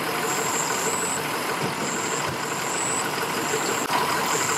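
Engines idling steadily, with a high-pitched buzz that comes and goes about once a second.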